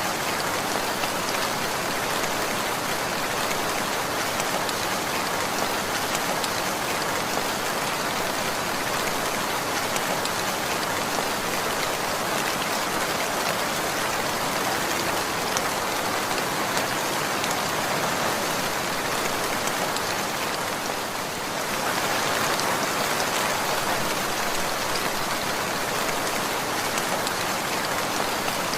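Steady heavy rainfall, dense drops pattering on a surface, with a brief dip in loudness about three quarters of the way through.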